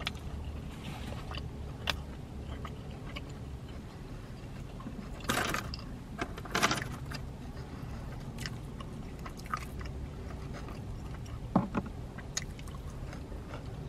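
Close-miked chewing and biting of fast food, with a few short louder noises from the food or its paper wrapper. A steady low hum of the car cabin runs underneath.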